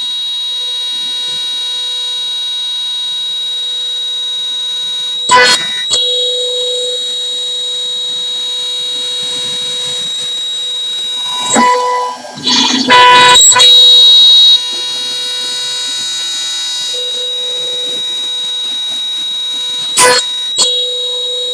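CNC router spindle whining steadily on one pitch as its cutter machines a wooden blank turned on a rotary fourth axis. Short loud bursts of noise break in a few times, the longest about 13 s in; the one near the end comes as a compressed-air nozzle is aimed at the workpiece.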